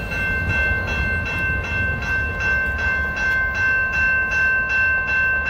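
Railroad grade-crossing warning bell ringing in an even rhythm, about two to three strikes a second, over the low rumble of a freight train rolling away.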